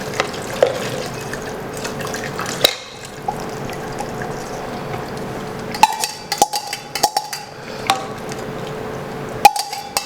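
Water poured from a tumbler into a cooking pot of rice and tomato masala, then several sharp metallic clinks of the tumbler and pot in the second half.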